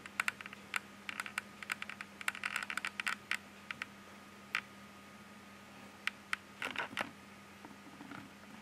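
Computer keyboard being typed on: quick, irregular key clicks, thick for the first three seconds or so, then scattered, with a short flurry about two thirds of the way through. A faint steady hum lies underneath.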